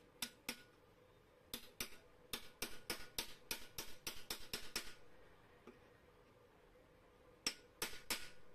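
Small hammer tapping a steel drift to drive a new ball bearing into its seat in a ceiling fan's end cover: sharp, light metallic taps. There are two taps, then a quick run of about fifteen at roughly four a second, a pause, and another cluster near the end.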